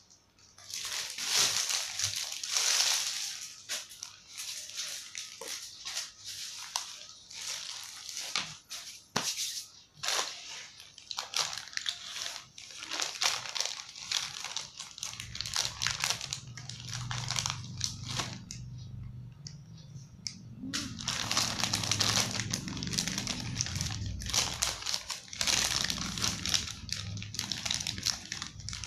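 A resealable plastic bag full of small plastic push-pin clips being handled and opened: the bag crinkles and the clips inside rattle and click, in irregular bursts with short pauses.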